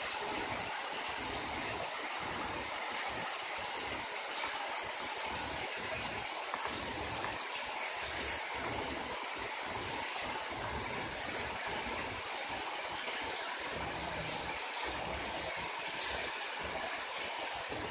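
Heavy rain pouring down onto a paved yard, a steady, even hiss of downpour.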